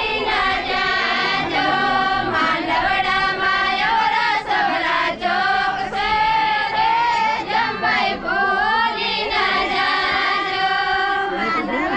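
A group of women singing a traditional Gujarati wedding song together, in continuous melodic phrases.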